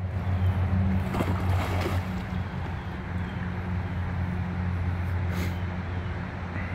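A dog jumps into a pond with a splash about a second in and swims off, its paddling faint. Under it runs a steady low hum.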